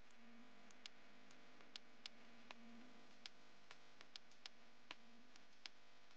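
Near silence: a faint steady hiss with about a dozen faint clicks at irregular intervals.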